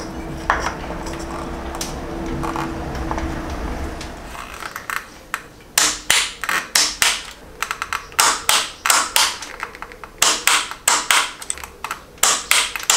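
Socket ratchet clicking in quick runs of sharp clicks, one run per back-stroke, while the water pump pulley bolts are tightened by hand. The first few seconds hold only a low steady hum before the clicking starts.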